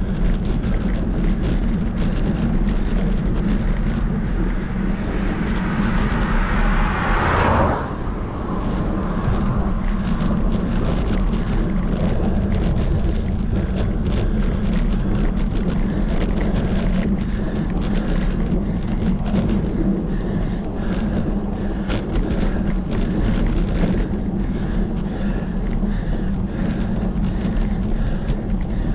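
Wind buffeting the camera microphone while cycling: a steady low rumble with road noise. A rushing noise swells for a few seconds and cuts off suddenly about seven and a half seconds in.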